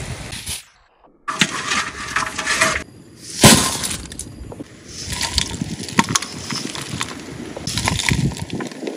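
Crispy deep-fried chicken pieces and fried banana chips being tossed and mixed in a metal bowl: a dry, crunchy rattling in several bursts with sharp clicks, broken by a short silence about a second in.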